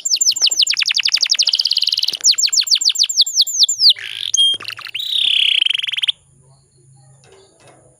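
Canary singing rapid trills of quick descending notes, then a dense buzzy roll. The song cuts off suddenly about six seconds in, leaving only a faint low hum.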